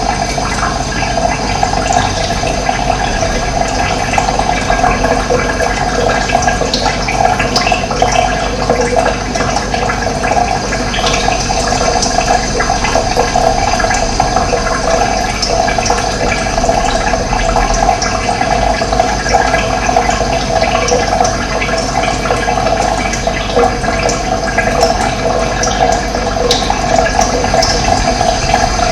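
Running water, a steady, loud rushing flow.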